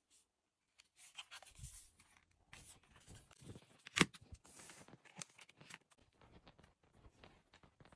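Hands handling and pressing on a bent smartphone's metal frame and housing: light rubbing and scraping with scattered small clicks, and one sharper click about four seconds in.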